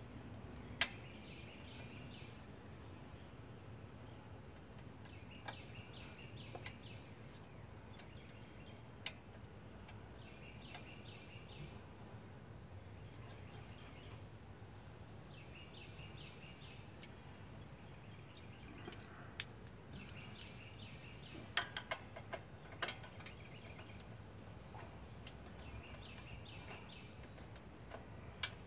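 Birds calling: one repeats a short high chirp about once a second, while another gives spells of a lower, faster patterned call. A few small clicks, the loudest about three quarters of the way through, come from hands working at a small go-kart engine.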